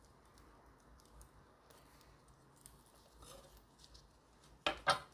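Faint knife-and-fingertip handling sounds as a jujube is cut away from its pit on a wooden cutting board, then two sharp knocks of the knife against the board close together near the end.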